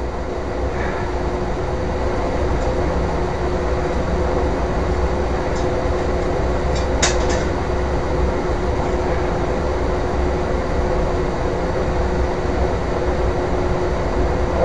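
Aluminium-melting foundry furnace running with a steady rushing burner noise and a constant hum. A single sharp metallic clink comes about seven seconds in.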